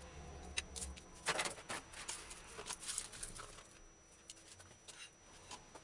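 Faint rustling and light taps of onion skin being peeled and kitchen scraps handled on a countertop, a few sharper clicks in the first half, quieter towards the end.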